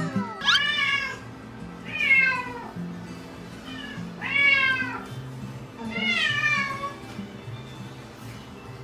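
A cat meowing during its shower bath: four long meows about two seconds apart, each rising then falling in pitch, over background music.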